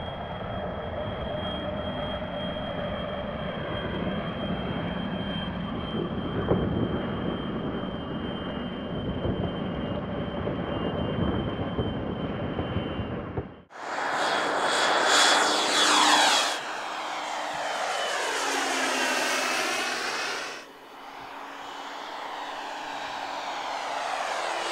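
Radio-controlled model Embraer EMB 312 Tucano turboprops flying in formation. First a steady engine noise with a thin high whine. Then, after a sudden cut about 14 s in, louder flybys whose pitch drops as the aircraft pass.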